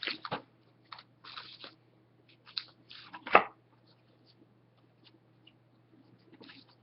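A pack of hockey trading cards being opened and the cards handled: scattered short crinkles and rustles of the wrapper and cards, the loudest a little over three seconds in, over a faint steady hum.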